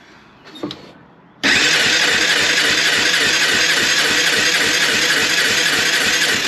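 Electric starter cranking a 2001 Honda Foreman's single-cylinder engine for a compression test, with the throttle wide open and a gauge in the spark plug hole. A steady whirring with a fast, even beat starts about a second and a half in and stops suddenly near the end. The gauge reads under 30 psi, compression the owner takes as far too low, a sign the top end needs rebuilding.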